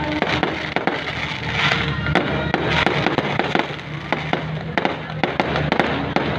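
Fireworks going off, many sharp pops and crackles in quick succession, with music playing under them.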